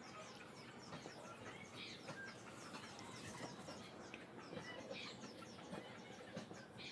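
Faint squeaks and scratches of a marker on a whiteboard as lines and digits are drawn, with small birds chirping faintly in the background.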